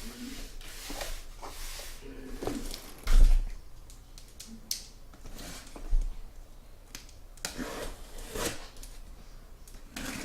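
Sealed cardboard hobby boxes being handled and arranged on a table: rustling and light clicks, with a thud about three seconds in and a smaller one about six seconds in as boxes are set down.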